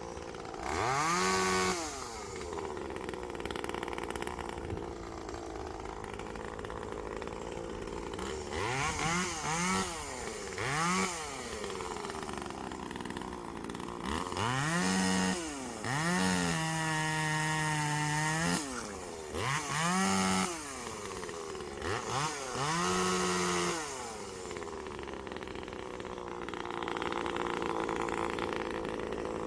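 One-handed chainsaw idling and being revved up in short blips, about seven times, each rising quickly in pitch and dropping back to idle; one rev about halfway through is held for around two seconds.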